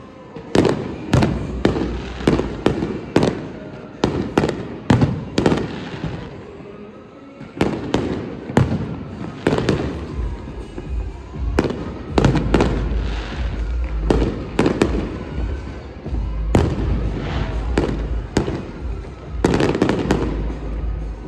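New Year fireworks going off: a long run of sharp bangs at irregular intervals, a few faint whistles gliding in pitch between them.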